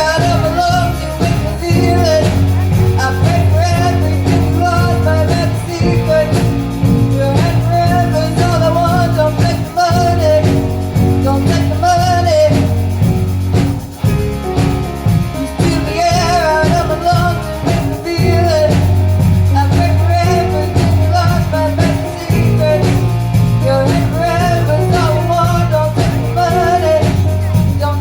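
A live rock band playing a song: drum kit, bass guitar and guitar keep a steady beat, with a wavering melody line on top.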